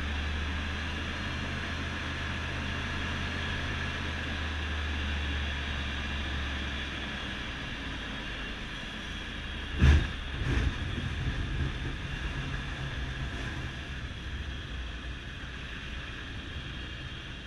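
Rotax 912 iS Sport engine and propeller of a small flying boat droning steadily, heard inside the cockpit while the hull runs on the water; the deep part of the drone weakens about seven seconds in. About ten seconds in comes a loud thump, a second one follows half a second later, and then an uneven knocking.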